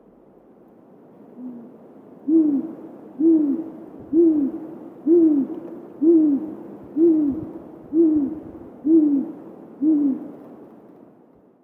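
Great gray owl hooting a slow series of deep hoots, about one a second, each falling slightly in pitch. The first hoot is faint, followed by nine louder ones.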